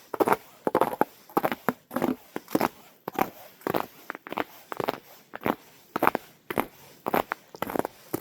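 Footsteps crunching on the ground at a steady walking pace, about two steps a second.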